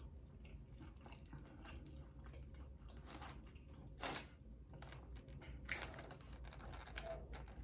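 Close-miked chewing of chicken wings: faint wet mouth clicks and smacks, with a few sharper clicks.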